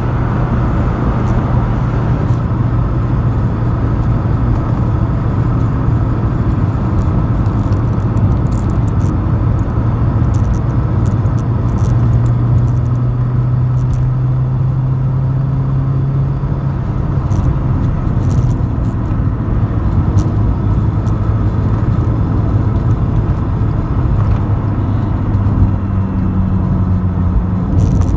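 A 1984 Mk2 Vauxhall Cavalier's 2.0 SEH four-cylinder engine, heard from inside the cabin, running steadily at cruising speed over loud road and tyre noise. The engine note rises a little about halfway through, then drops back and settles lower near the end, with small rattles from the cabin.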